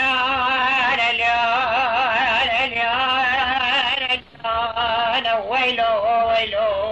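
A man's solo voice singing a Kurdish dengbêj epic song, with long held notes that waver and trill in ornaments. There is a brief breath break about four seconds in.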